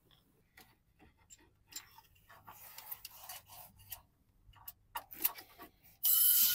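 Small clicks and rustles of a DPF-cleaning trigger spray gun and probe hose being handled. About six seconds in comes a loud hiss as the pressurised sprayer injects DPF cleaning chemical through a sensor hole into the exhaust.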